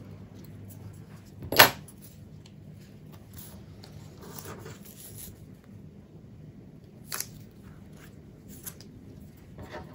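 Paper-crafting handling noise: a sharp click about one and a half seconds in, as small scissors are set down on the cutting mat, then soft rustling of paper and tape with a couple of lighter clicks.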